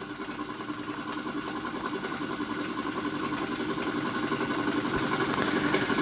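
Märklin 4106 model steam engine running steadily under its own steam, with a fast, even exhaust beat and light mechanical clatter that grows gradually louder. The exhaust is wet, spitting water carried over from an overfilled boiler.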